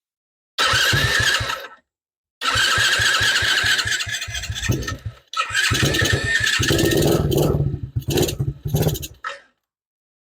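Tao Tao 100cc ATV's single-cylinder four-stroke engine being cranked on its electric starter in three bursts, with a whining starter and a fast chugging of compression strokes. During the last and longest burst it fires and runs briefly on starting fluid sprayed into the carburettor throat, a sign that the spark is good and the engine is starved of fuel.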